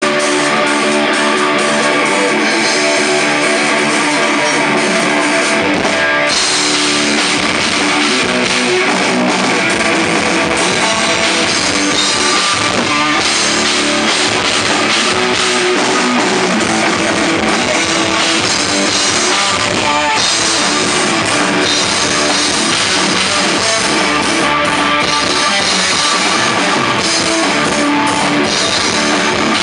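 A pop-punk band playing loud rock on electric guitars and a drum kit with cymbals. The low end comes in about six seconds in, as the bass and kick drum join.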